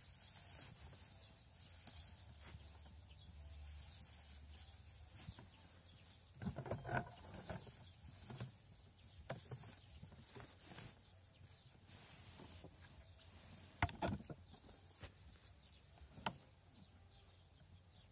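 Dry hay rustling as it is stuffed by hand into a homemade chipboard hay press, with a few short knocks from the press box and its lever, a cluster about a third of the way in and sharper single ones later on.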